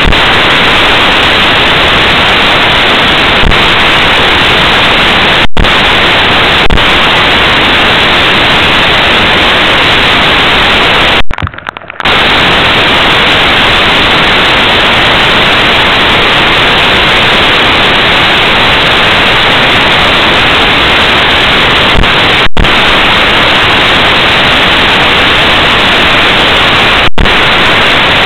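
Rain falling steadily, heard as a loud, even hiss, broken by a few brief dropouts in the sound, the longest near the middle.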